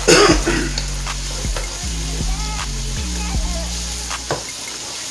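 Chopped onions and green bell peppers sizzling in a deep skillet while a wooden spoon stirs them, with several sharp scrapes and knocks of the spoon against the pan.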